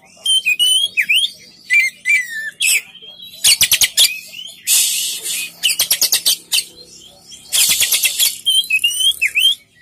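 Oriental magpie-robin singing: whistled notes that slide up and down, broken twice by fast rattling runs of clicks and by a harsh, hissing burst.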